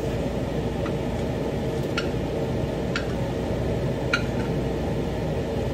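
A steady low whir of a running kitchen appliance, with light sharp clicks about once a second.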